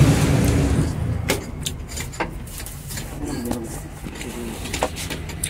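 A few sharp clicks and knocks from a truck cab being climbed into and handled, over a steady low engine hum from nearby; a louder engine rumble dies away in the first second.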